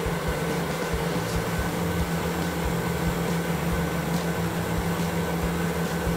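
Motorised treadmill running steadily: a motor hum with a higher whine over the rush of the moving belt, with soft low thumps at irregular intervals as the belt spins the wheels of a tethered LEGO Technic car.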